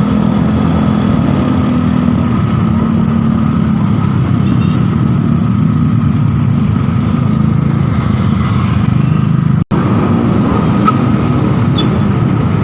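Steady motor-vehicle engine and road noise in traffic, with no telolet horn tune sounding. The sound breaks off for an instant about ten seconds in, then carries on as before.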